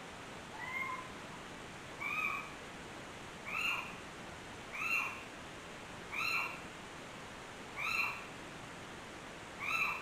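An animal calling seven times in short mewing cries, each rising then falling in pitch, evenly spaced about a second and a half apart, over a steady hiss.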